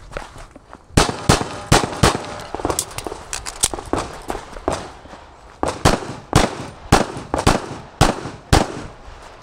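Pistol fired in a rapid string: about fifteen sharp shots starting about a second in, the loudest roughly half a second apart, with fainter cracks in between.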